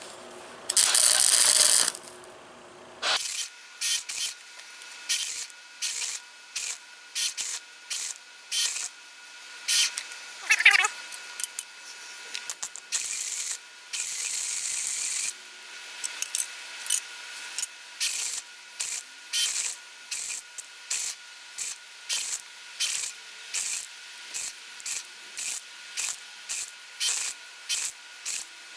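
Electric arc welder crackling and hissing in many short bursts, the arc struck and broken about once or twice a second, with a longer run near the start and another in the middle. A faint steady high tone sits under it between bursts.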